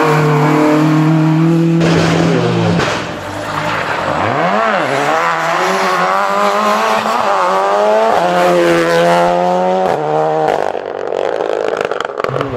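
Rally car engines at full throttle as cars pass on a stage. A steady high-revving note at first, then the pitch climbs and drops again and again through gear changes, turning noisier near the end.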